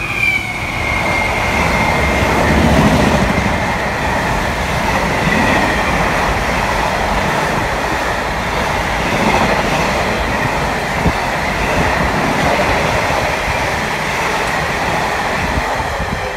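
A Class 66 diesel-hauled container freight train passing at speed: the locomotive goes by first, then a long rake of intermodal wagons with a steady loud rumble of wheels on rail and some clickety-clack. A thin high whine sinks slightly over the first few seconds, and the noise eases a little near the end as the train draws away.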